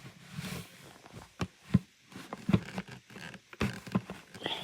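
Hard plastic parts of a Hoover vacuum cleaner knocking and clicking as they are handled and pushed together, a scatter of short sharp knocks about five of them louder, while a part that will not lock on is being fitted.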